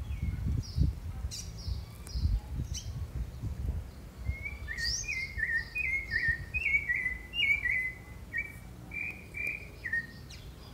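Caged rufous-bellied thrush (sabiá-laranjeira) singing: a run of short, clear whistled notes, two to three a second, starting about four seconds in and stopping near the end, after a few higher chirps. A low rumble runs under the first few seconds.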